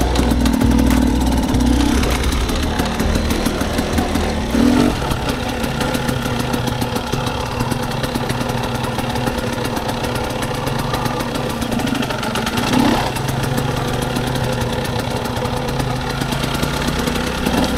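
Dirt bike engine running at a steady trail-riding pace, with brief throttle blips about five seconds in and again near thirteen seconds.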